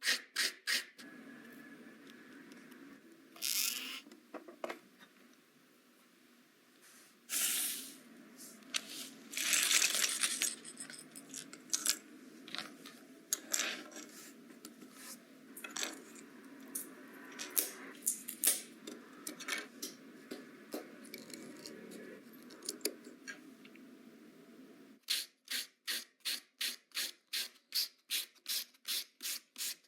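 Hand-sanding a small 3D-printed plastic part with sandpaper: scattered scrapes and rubs and small handling clicks, then steady back-and-forth sanding strokes, about three or four a second, over the last five seconds.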